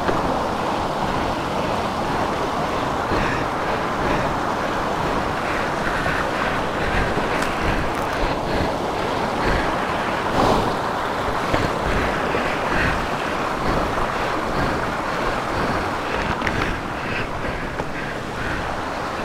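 A steady rushing noise, with a few faint knocks and clicks over it.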